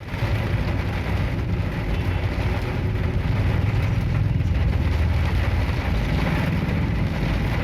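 Car driving in rain: a steady low rumble of engine and tyres with the hiss of rain over it.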